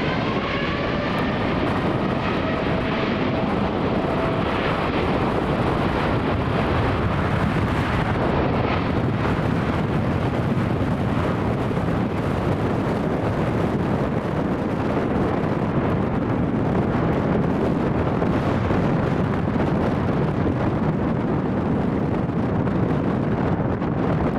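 Jet engines of a departing Boeing 787-8 airliner: a whine that falls in pitch over the first few seconds as the aircraft passes, then a loud, steady rushing noise.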